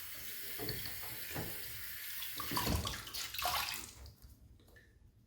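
Water running from a tap into a sink, with irregular splashing, cut off about four seconds in.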